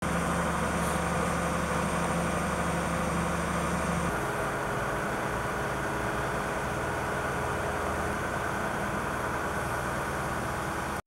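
Mobile crane's engine running steadily under a haze of outdoor noise, its low hum shifting about four seconds in.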